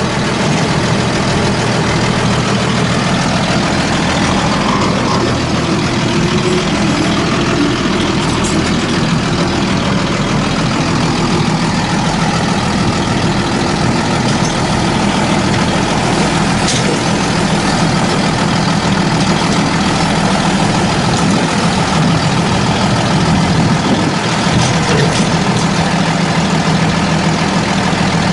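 Diesel engine of heavy machinery idling steadily, a low even hum, with a couple of faint clicks.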